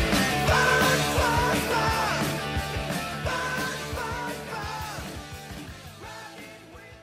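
Rock music with drums and a wavering lead line, fading out steadily.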